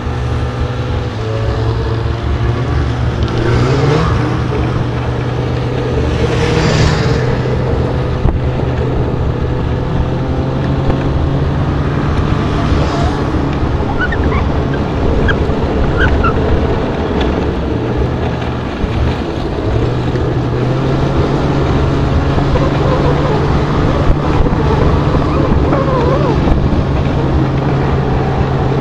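Snowmobile engine running steadily at trail speed, its drone easing off briefly about two-thirds of the way through and then picking back up, with wind rushing over the microphone.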